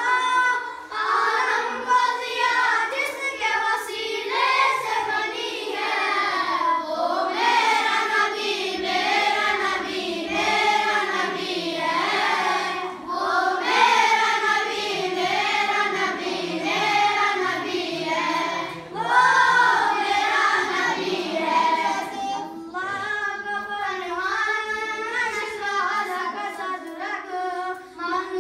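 A boy singing a naat unaccompanied, his voice gliding and wavering through a long, ornamented melody with short breaks for breath.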